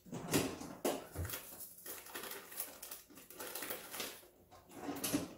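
Rummaging in a refrigerator: things shifted on the shelves and a plastic package crinkling as it is handled, in irregular rustles and clicks with short pauses.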